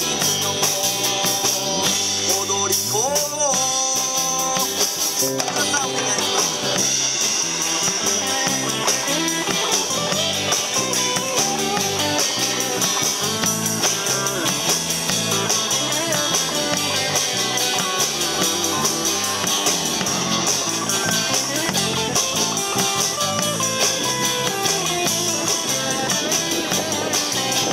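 Live rock-and-roll band playing through an outdoor PA: two electric guitars, electric bass and a drum kit in a steady beat.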